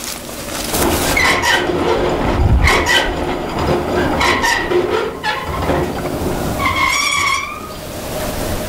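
Hand-built intonarumori-style noise intoner, a wooden box with a metal horn, sounding over a rough grinding rumble. It gives about five short, raspy, pitched squeals, and the last, near the end, is the longest.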